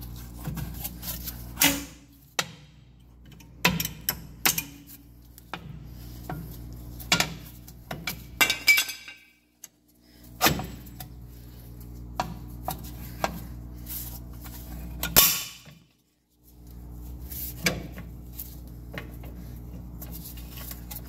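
Metal clinks and clanks as the return springs and steel brake shoes are pried off a 1947 Plymouth P15's front drum-brake backing plate. The knocks come at irregular intervals, the loudest about fifteen seconds in, over a steady low hum.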